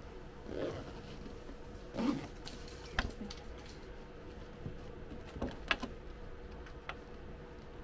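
Domestic sewing machine stitching slowly through thick layers of fabric and stabiliser: a few scattered needle clicks and the rustle of the layered fabric being guided, over a faint steady hum.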